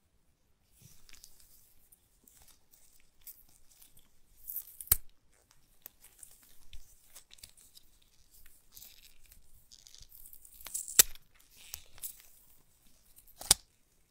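Paper wrap ties tearing and crinkling as they are peeled off a coiled USB-C charging cable, with scattered rustling and three sharp snaps, the loudest a little past the middle.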